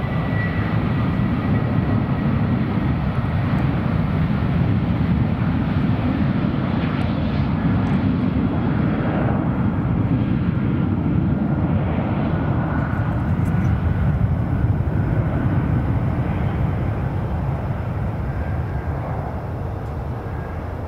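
Jet airliner's engines at takeoff power, a loud, steady roar that fades near the end as the plane moves away.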